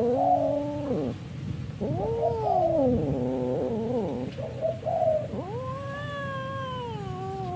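Orange-and-white cat yowling in long, wavering cries that rise and fall in pitch: one ends about a second in, a long one runs from about two to four seconds in, a short one comes near five seconds, and another long one starts soon after and carries on. This is the drawn-out caterwaul of a cat squaring up to fight.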